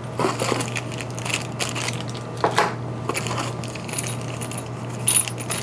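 Small metal hardware parts in plastic bags clinking and rustling as they are handled and set down: a scatter of light clicks and crinkles over a faint steady low hum.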